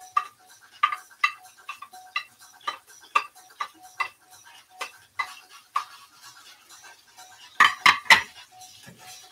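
A metal utensil clinking against a plate in short, quick taps, about two a second, as chopped onions and green chili are scraped off it into a frying pan. Three louder knocks come close together near the end.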